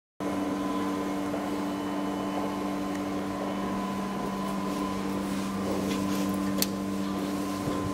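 Steady machinery hum: a low drone with a faint higher whine over it, and a couple of light clicks about two-thirds of the way through.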